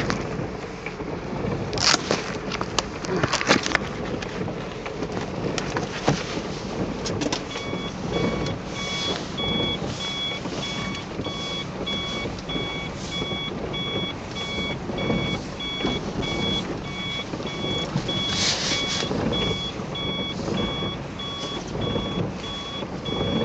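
A car's electronic warning chime beeping over and over at an even rate, about two beeps a second, starting about a third of the way in. Under it, the shiny PVC rain suit rustles and crinkles as the wearer moves in the seat.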